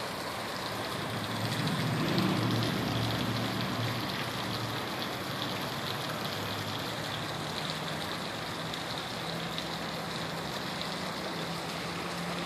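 A low, steady motor hum over a constant background hiss, louder for a couple of seconds about one and a half seconds in.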